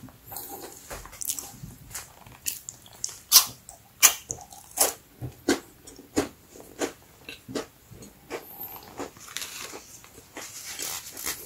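Chocolate-coated crispy crackers being chewed close to the microphone: a series of sharp, irregular crunches, about one or two a second.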